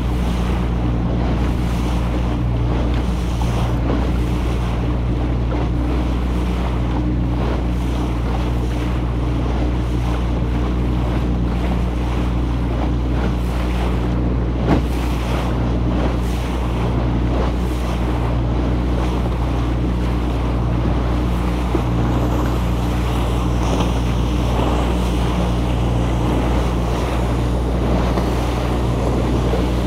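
Engine of a wooden motorboat running steadily under way, with water rushing along the hull and wind buffeting the microphone. One short knock sounds about halfway through.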